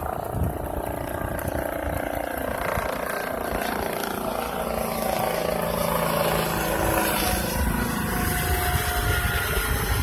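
Car driving, with steady engine and road noise heard from inside the cabin.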